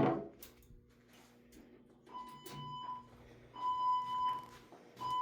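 Fire alarm sounding its alert tone just after being pulled: a steady electronic tone, a bit under a second long, repeats three times about every one and a half seconds, starting about two seconds in.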